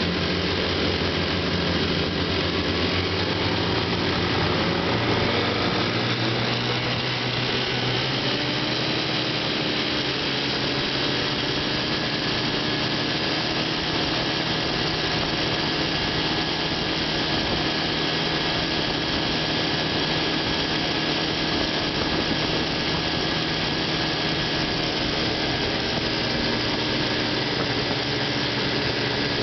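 Three Johnson JW 3 hp two-cylinder two-stroke outboard motors running together under way. The combined engine note rises a few seconds in, then holds steady.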